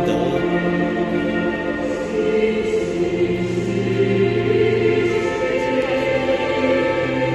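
Slow Confucian ritual music: a choir singing long, held notes that change pitch every second or two, accompanying the eight-row dance.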